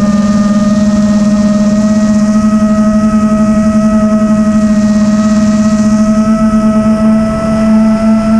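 Motors and tri-blade propellers of a 7-inch FPV quadcopter (Racerstar 2508 1200 kV motors, Dal Cyclone 7x5.6x3 props) whining steadily in cruise, recorded by the onboard GoPro Session 5. The pitch creeps slowly upward, and the motors beat against each other in a fast pulse.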